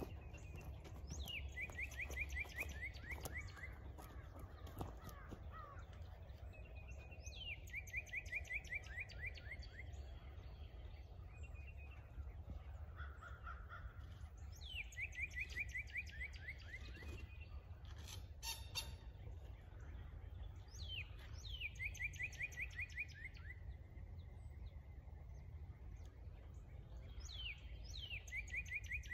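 A songbird sings the same phrase about five times, roughly every six seconds: a quick downward slur, then a fast run of short, slightly falling notes. Under it runs a steady low wind rumble, with a few faint clicks a little past the middle.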